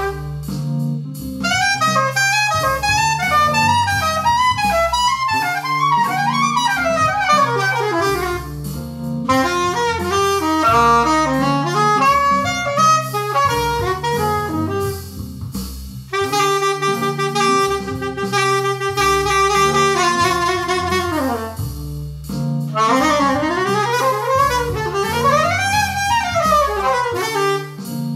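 Instrumental electronic jam music: a reedy, saxophone-like lead plays quick rising and falling runs over a repeating bass line. Partway through it settles into a few held chords, then sweeps up and down in fast arpeggios.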